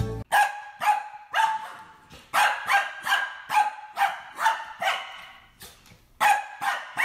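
Small white fluffy dog barking: a quick series of short, high-pitched yaps, roughly two a second, with a brief pause about two-thirds of the way through.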